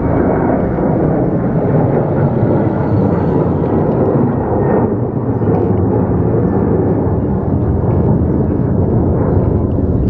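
Jet engines of a Boeing 737 at takeoff power as it climbs out: a loud, steady roar.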